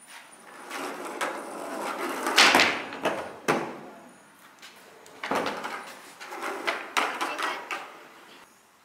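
Skateboard wheels rolling, rising to a loud rush about two and a half seconds in, then a sharp clack of the board. A second, quieter roll follows, with another clack near its end.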